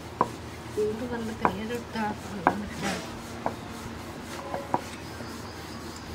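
Wooden rolling pin clacking on a steel plate as chapati dough is rolled out: sharp knocks about once a second, two in quick succession near the end.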